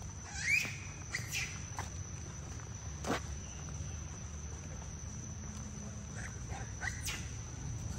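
Tropical forest ambience: an insect's steady high-pitched drone, with a few short rising chirps about half a second in and again near the end, and one sharp click about three seconds in.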